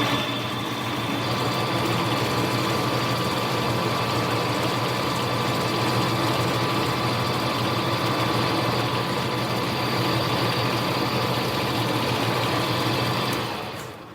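Small bench lathe running steadily, its motor and gear train giving an even whine, while turning the diameter of a Delrin bar; it winds down near the end.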